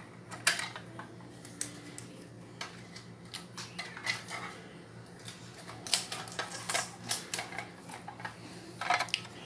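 Scissors snipping through packing tape, with small plastic packaging handled around it: a scatter of short, sharp clicks and ticks that thickens about six seconds in.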